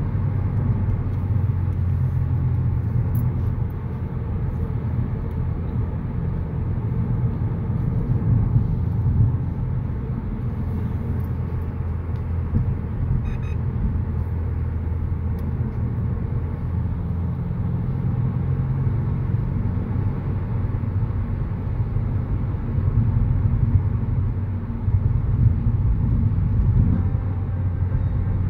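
Steady low engine and tyre rumble of a car driving at road speed, heard from inside its cabin.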